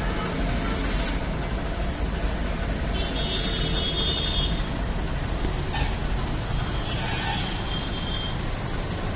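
Honda Shine's single-cylinder four-stroke engine idling steadily while hooked up to an engine carbon-cleaning machine, with three short hisses over the steady rumble.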